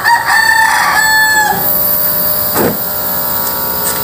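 A rooster crows once, a long call lasting under two seconds, over the steady hum of the air conditioner running with its newly replaced compressor.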